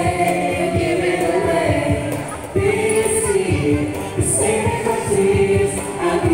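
A small vocal group singing together into handheld microphones, voices blended on long held notes.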